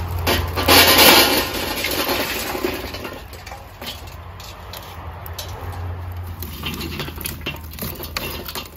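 Lit charcoal briquettes tipped out of a metal chimney starter into a kettle grill, clattering and clinking down in one loud rush about a second in. Lighter scattered clinks follow as the hot coals are pushed around with a metal scraper.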